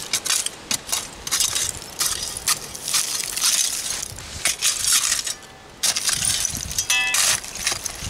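Hand digging tool scraping and chopping through dirt packed with broken glass, giving a run of gritty scrapes and crunches with glass shards clinking, and a short ringing clink about seven seconds in.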